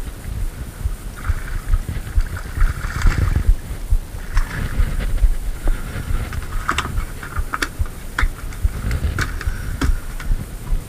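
Knocks and handling noise in a small fibreglass rowboat, with a low wind rumble on the microphone. The sharp knocks cluster in the second half.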